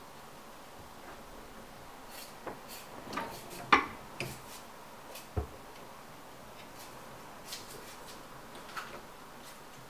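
Scattered light knocks and clicks of objects being handled, with a sharper knock a little before the middle and a low thump soon after.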